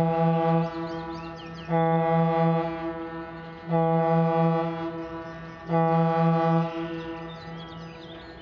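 The Goodtime III tour boat's horn sounding four blasts about two seconds apart. Each blast is one low, steady note about a second long, with a fading echo after it.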